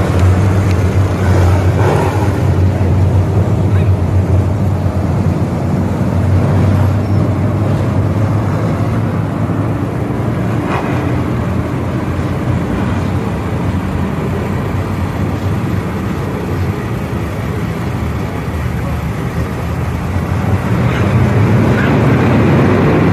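Engines of a pack of street stock race cars running laps on a dirt oval, a loud steady drone that fades a little in the middle and grows louder again near the end.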